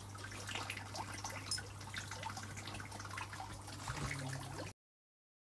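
Aquarium water trickling and bubbling over a steady low hum from the tank equipment. It cuts off suddenly near the end.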